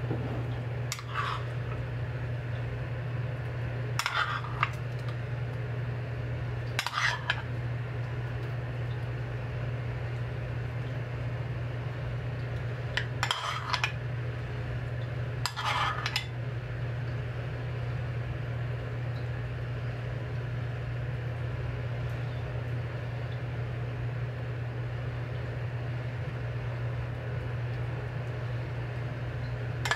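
Kitchen utensils clinking and scraping against dishes about five times in the first half, each sound brief, over a steady low hum.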